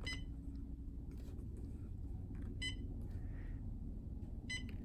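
Short electronic key-press beeps from a Humminbird Helix 7 fish finder as its buttons are pressed: a few beeps spaced irregularly, two in quick succession near the end, over a low steady hum.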